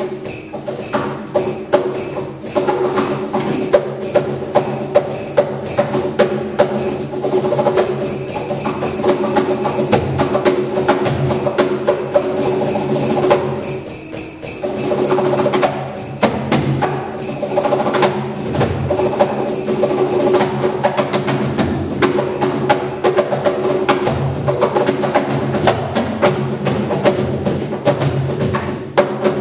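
Cajon played by hand in a fast improvised solo: rapid slaps and taps on the wooden box, with a short dip in loudness about halfway through before the playing picks up again.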